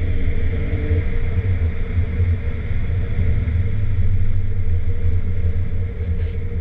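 Porsche 996 Turbo's twin-turbo flat-six heard from inside the cabin while driving. Its pitch rises for about the first second as the car accelerates, then it runs steadily under load.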